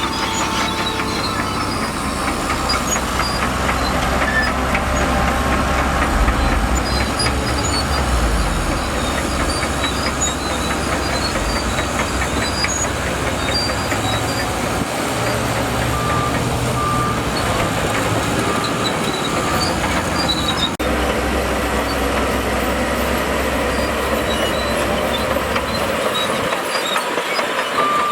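Crawler bulldozer's diesel engine running under load with its steel tracks clattering. A reversing alarm beeps in a short run of even beeps just past the middle.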